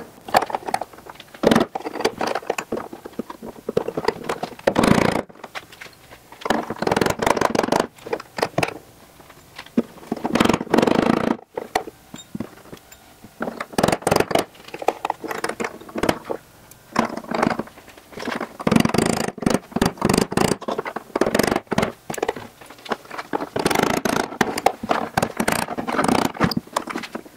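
Intermittent scraping, rattling and clicking of small metal parts being worked by hand, in bursts every second or two, as a door handle, its tension spring and roll pin are fitted into place.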